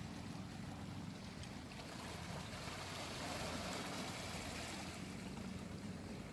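Seto Inland Sea water washing against the shore, a wave rising to a swell in the middle and easing off again, over a low steady hum.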